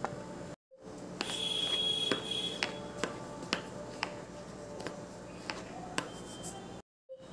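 Hand rubbing flour together in a plastic bowl, with a string of sharp clicks and short ringing clinks, about one every half second, from the hand and its bangles knocking against the bowl. A faint steady hum lies underneath, and the sound cuts out briefly near the start and again near the end.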